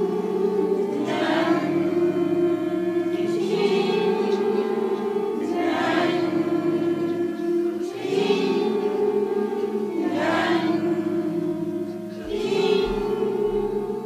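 A small group of voices singing the "tin'-nyan'" vocal resonance exercise together on held notes. A new syllable comes in about every two seconds.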